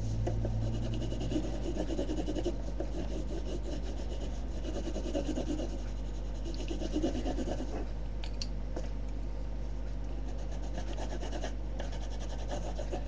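Coloured pencil shading rapidly on paper: fast back-and-forth scratching strokes, heavier for the first eight seconds or so and lighter after.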